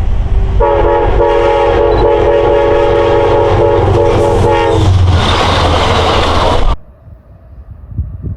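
Long Island Rail Road train sounding its multi-note horn chord for about four seconds over the loud rush and rumble of the passing train. The horn stops, the train noise runs on briefly, then the sound cuts off suddenly.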